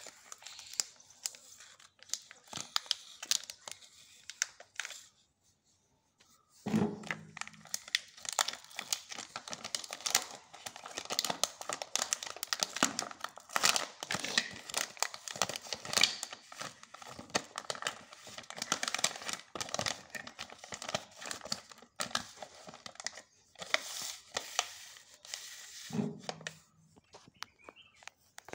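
Cadbury Dairy Milk chocolate bar wrapper being opened by hand: the purple outer wrapper and the inner aluminium foil crinkle and tear as they are unfolded and peeled back. There are light rustles at first and a short pause, then near-continuous crinkling until shortly before the end.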